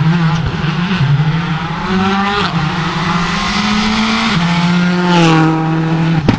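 Rally car engine driving hard toward the listener on a tarmac stage. The engine note climbs and steps down at gear changes about two and a half and four and a half seconds in, then dips and picks up again a second later.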